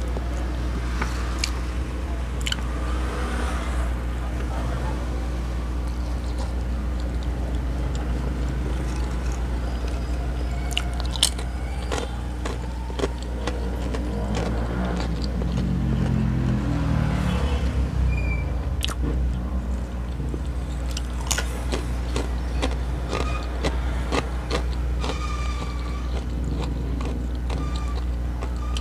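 Close-miked eating sounds: biting and chewing a burger and crunching potato chips, heard as scattered short clicks and crunches. Under them runs a steady low hum that swells for a few seconds in the middle.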